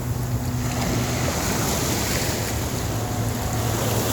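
Ocean surf washing on a beach, with wind buffeting the microphone and a low steady hum underneath.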